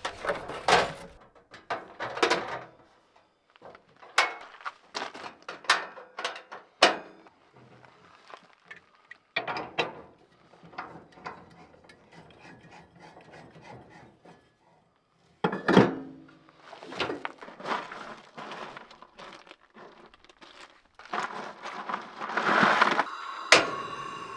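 Camp cooking gear being handled at a vehicle's tailgate: scattered knocks, clatters and rubbing as items are pulled from plastic crates and a two-burner camp stove is set out. Near the end a steady hiss sets in, with one sharp click.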